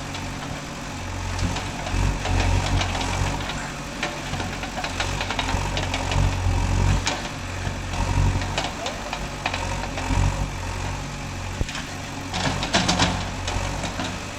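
JCB 3DX backhoe loader's diesel engine running under varying load as the backhoe bucket works the soil, with occasional knocks.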